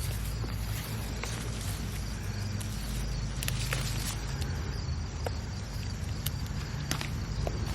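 Summer garden ambience: insects chirping faintly and repeatedly over a steady low rumble, with a few light clicks and rustles now and then.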